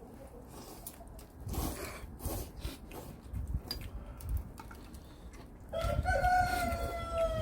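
A rooster crows once near the end, a single held call lasting under two seconds, over scattered small clicks and knocks.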